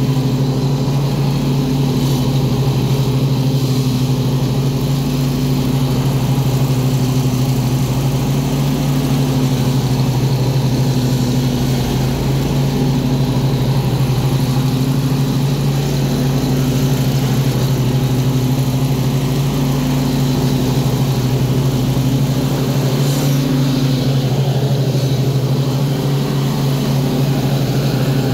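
Stand-on commercial lawn mower's engine running steadily at constant speed while the mower is driven along.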